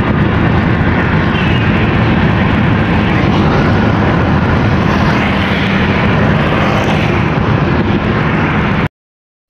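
Steady, loud rush of wind and road noise in a car driving at highway speed. It cuts off abruptly near the end.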